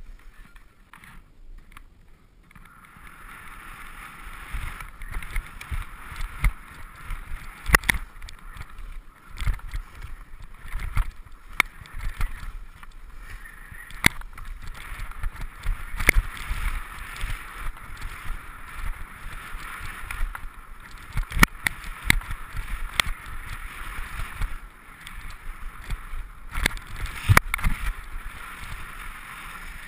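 Skis sliding and scraping over snow during a downhill run, with wind rumbling on the helmet camera's microphone and scattered sharp clicks and knocks; the sliding gets louder about three seconds in.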